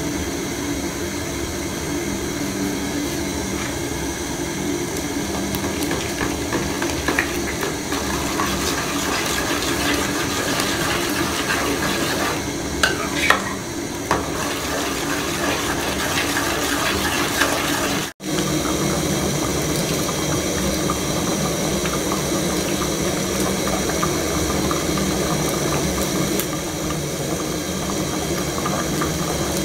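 Soup bubbling in an aluminium pot on a stove, a steady hiss. About halfway through, a ladle clinks and scrapes against a bowl and the pot. Near two-thirds through, the sound breaks off for an instant and then goes on.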